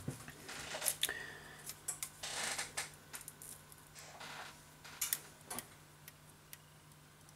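Light clicks, taps and a few short rustles of a smartphone LCD display module and its flex cable being handled and set down on a work mat.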